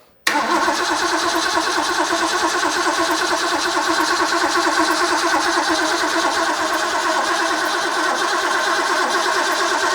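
Starter motor cranking a rebuilt Ford 351 Cleveland V8 with the ignition coil disconnected, so it spins steadily without firing, building oil pressure and drawing fuel up to the carburetor bowls. The cranking starts just after the beginning and stops at the very end.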